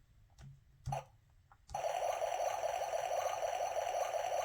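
Bubbling water sound effect from a children's button sound book, played through its small tinny speaker; it starts about one and a half seconds in after a faint click or two and runs on steadily.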